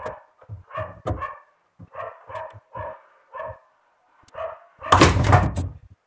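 Dog barking in a run of short barks, about two a second, followed about five seconds in by a louder, noisy burst lasting about a second.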